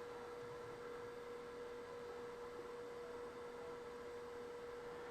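A faint, steady electrical hum: one unchanging mid-pitched tone over quiet room noise.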